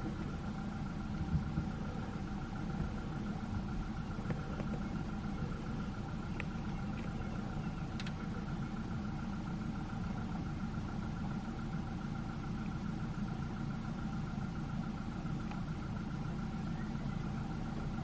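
Vehicle engine idling steadily: a low rumble with a constant hum above it.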